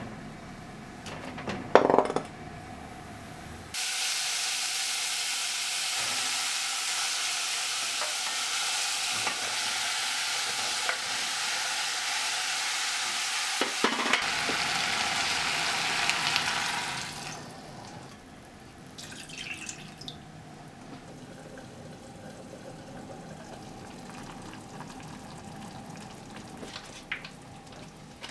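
Food sizzling in a pan: a steady hiss that starts suddenly about four seconds in and fades out a little after the middle. A couple of sharp clinks come about two seconds in.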